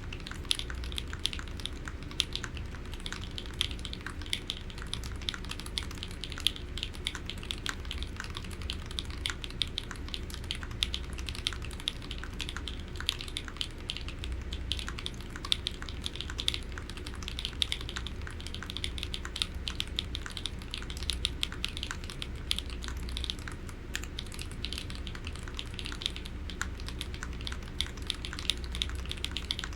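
Continuous fast typing on an HHKB Polaris mechanical keyboard with Novelkeys Cream linear switches lubed with 205g0, a brass plate with plate and case foam, and EPBT PBT keycaps: a steady stream of keystroke clacks, several a second.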